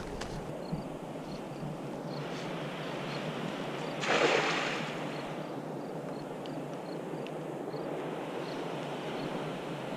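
A thrown cast net lands on the water with one brief splash about four seconds in, over steady wind noise on the microphone.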